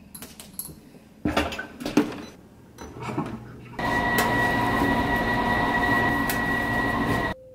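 Dishes and dishwasher racks clattering, a few knocks over the first three seconds. Then a top-loading washing machine running with a loud steady hum and whine, cutting off suddenly near the end.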